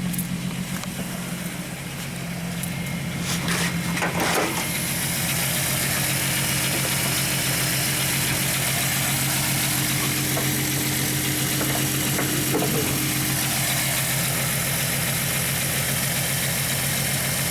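A 1998 Volkswagen Eurovan's VR6 engine idling roughly with a misfire, traced by its codes to cylinder 4 and its fuel injector. There are a few knocks about three to four seconds in. After them the engine sounds louder and fuller.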